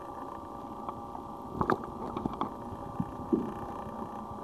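Electric chopper's motor whining steadily at an even pitch while riding, with a few short knocks and rattles.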